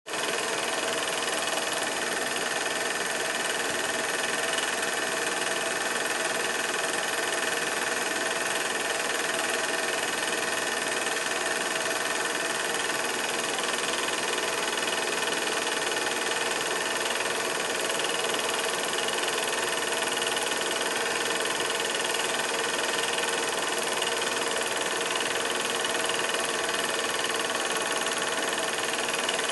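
Steady hiss-like noise with a faint whine of several held tones, unchanging throughout.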